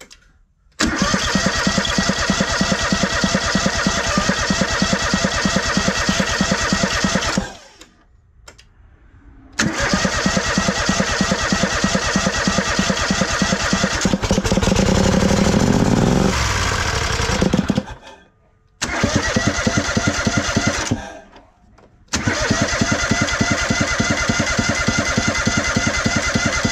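Kohler Command 27 hp V-twin engine being cranked by its electric starter on its first start after a connecting-rod rebuild: four cranking bursts of several seconds each with short pauses between. In the middle of the second burst it briefly catches and revs up, then dies.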